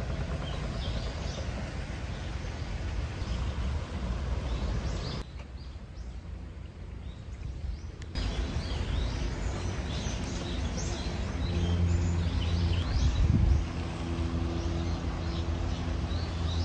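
Small birds chirping again and again over a low outdoor rumble. About halfway through the sound drops for a few seconds, and in the second half a low steady hum joins in.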